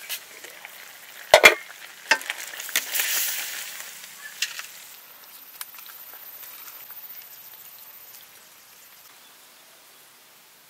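A metal pot lid clanks sharply about a second and a half in, with a few lighter knocks of cookware after it, over food sizzling in a hot pan; the sizzle swells around three seconds in and then fades away.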